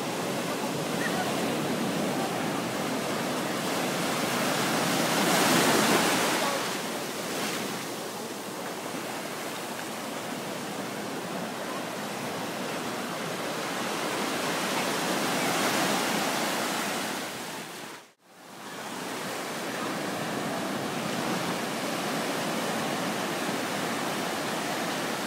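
Ocean surf breaking and washing up the shore, swelling louder twice as waves break. The sound drops out for a moment about eighteen seconds in.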